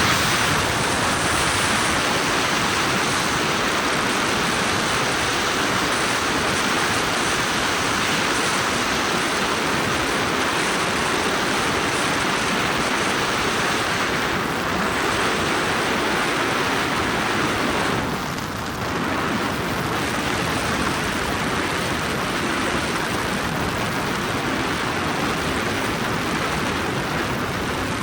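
Helicopter noise as heard from inside the cabin: a steady, even rush from engine and rotor, with a brief dip about two-thirds of the way through.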